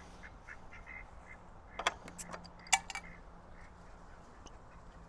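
A glass beer bottle being handled and raised for a drink: two sharp clicks a little under a second apart, about two seconds in, the second the louder.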